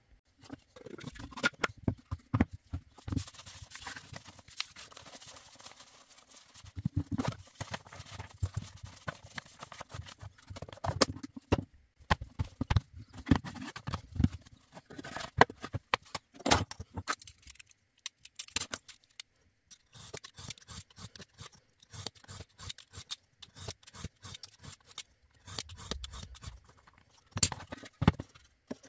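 Hands moving a wooden tissue box, a sheet of cardboard and a steel ruler about on a cutting mat: irregular knocks, taps and scrapes with a few short pauses.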